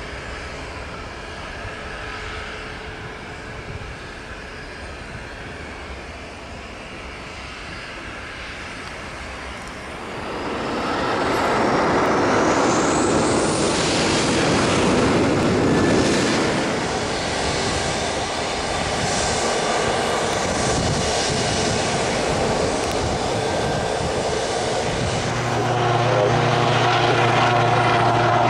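Jet airliner engines on the runway, moderate at first, then growing loud about ten seconds in as a rising whine climbs and holds. Near the end a helicopter's steady low-pitched drone comes in.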